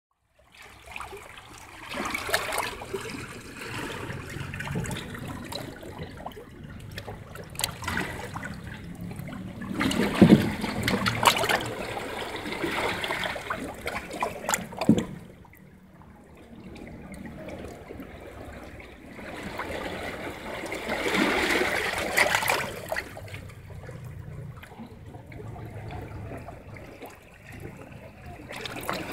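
Sea water washing in and trickling off among lava rocks, swelling and ebbing in several surges, with a few scattered clicks.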